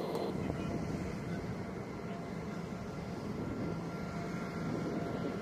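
Steady running noise of jet aircraft and ground support equipment on a military flight line, with a few faint high, steady whines over a low rumble.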